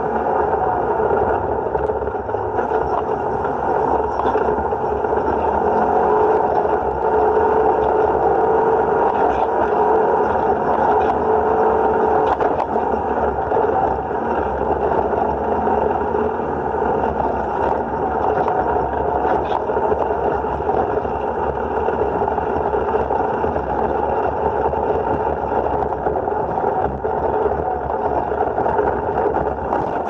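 Side-by-side UTV driving along a gravel forest road at about 30 mph, heard from inside the cab: a steady engine drone mixed with tyre and wind noise, with a few faint clicks.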